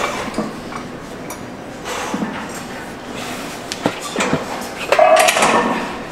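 Metal clanks and clatter of gym weight equipment, scattered knocks with a louder ringing clang about five seconds in.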